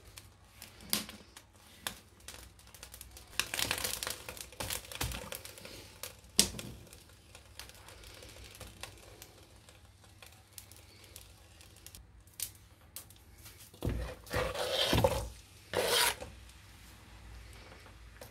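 Kitchen preparation sounds at a nonstick pot: rubbing and scraping with scattered clicks, a sharp knock about six seconds in, and two louder scraping bursts near the end as chopped onion goes into the pot.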